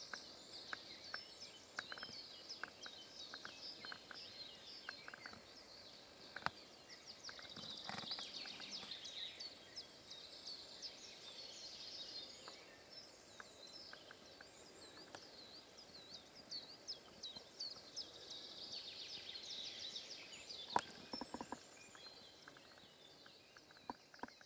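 Songbirds singing over one another, a dense run of high chirps and trills, with scattered sharp clicks, the loudest about 21 seconds in.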